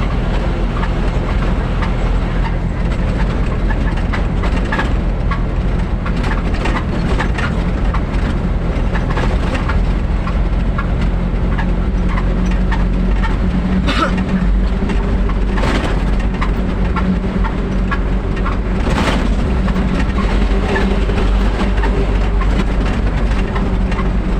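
Vehicle engine running steadily while driving, with road noise and a few short clicks around the middle.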